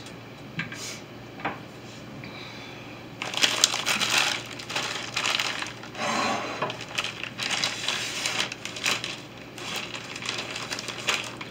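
Plastic bags crinkling and rustling as they are handled and opened, starting about three seconds in and going on unevenly with many crisp crackles.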